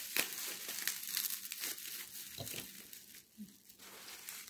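Packaging crinkling and rustling as miniatures are unwrapped by hand, a dense crackle that thins out after about three seconds.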